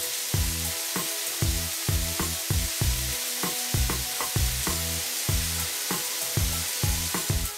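A steady hiss over background music with a steady bass beat; the hiss cuts off suddenly near the end.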